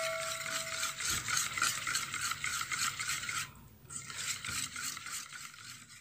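Pancake batter being stirred briskly in a bowl: quick, even scraping strokes of the utensil against the bowl, with a short break a little past halfway. A light ringing note from the bowl fades out in the first second.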